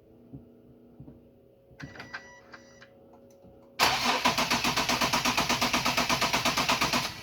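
An Infiniti SUV's starter cranking the engine over in a fast, even rhythm for about three seconds without it catching, then cutting off suddenly; no fuel is reaching the disconnected fuel line. Shortly before, a few electronic chime tones sound.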